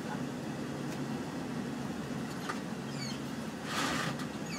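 Semi truck's diesel engine running steadily, heard from inside the cab, with a brief hiss near the end.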